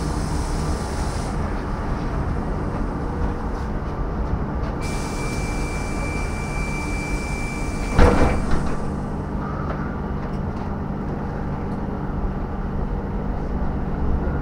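Cabin noise of a KAMAZ electric bus riding in city traffic: a steady low road and running noise. A thin steady high tone sounds for a few seconds mid-way, and a sharp knock about eight seconds in is followed by a smaller one.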